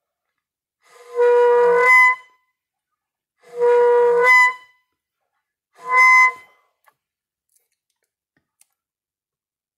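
Homemade saxoflute, a saxophone mouthpiece and neck taped onto a flute body, playing three held notes: two of about a second and a half and a shorter third. Each note jumps up in pitch just before it stops. It falls silent for the last three seconds.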